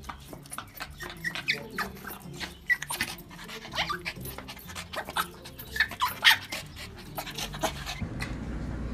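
A small long-haired dog whimpers in short high whines and pants in quick breaths, excited by a chick held close to its face.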